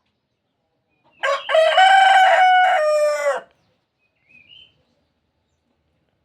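A rooster crowing once, a single cock-a-doodle-doo about two seconds long that starts a little over a second in, followed by a brief faint chirp.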